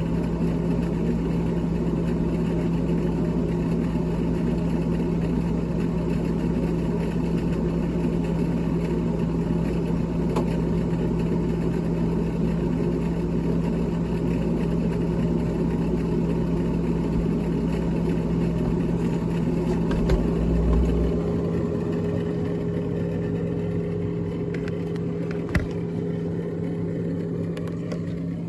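A steady electric motor hum with a strong low tone over rushing air noise. A deeper rumble underneath stops about three quarters of the way through, and a single sharp click comes a few seconds later.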